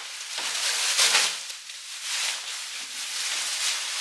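Plastic stretch wrap crackling and rustling as it is pulled and torn off a boxed pallet, loudest about a second in.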